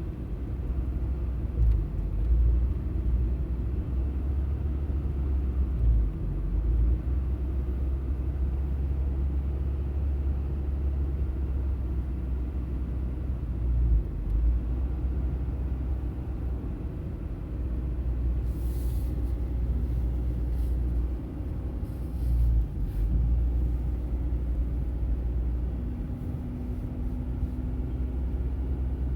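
Low road and engine rumble heard inside the cabin of a moving 1995 Honda Accord, with a few brief louder swells.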